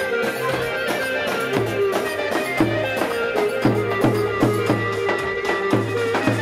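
Folk-style dance music with a steady drum beat of about two strokes a second under a plucked-string melody.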